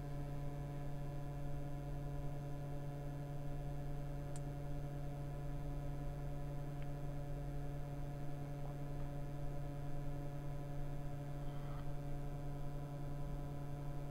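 Steady electrical hum with a stack of overtones in a Tesla Model S cabin while the car supercharges, with a couple of faint ticks.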